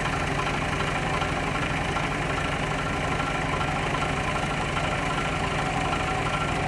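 A vehicle engine idling steadily, a low even hum with a fine regular pulse.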